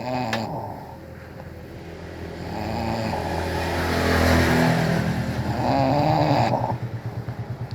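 A person snoring loudly: long snores that swell and fade, breaking into a fluttering rattle near the end.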